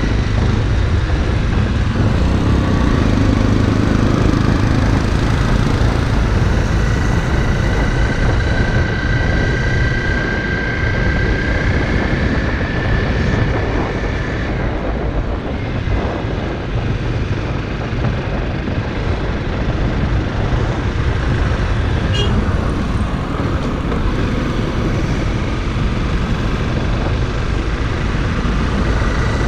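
Honda CRF motorcycle being ridden: engine running under a steady low rumble of road and wind noise, with a faint whine that rises and falls slowly in pitch.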